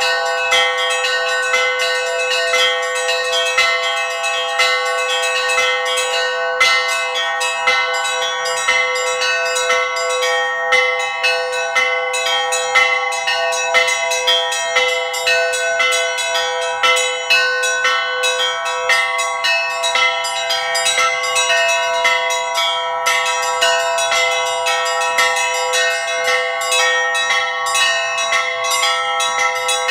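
Orthodox peal on a set of small fixed church bells, their clappers worked by hand ropes: a rapid, continuous run of strikes with the bell tones ringing on and overlapping. All the bells are fairly high-pitched, with no deep bell sounding.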